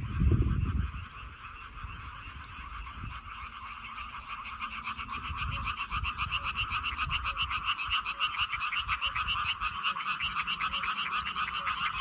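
A chorus of many frogs croaking in a rice paddy newly flooded for rice planting. It is a dense, fast-pulsing croaking that grows louder from about halfway through. A low rumble is heard in the first second.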